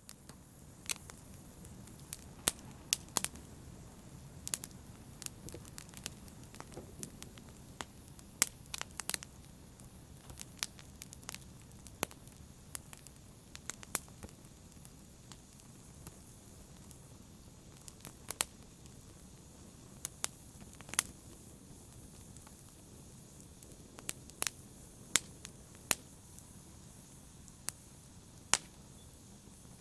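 Fire burning in a fireplace: a steady low rush of flames under irregular sharp crackles and pops, sometimes several close together, sometimes a second or more apart.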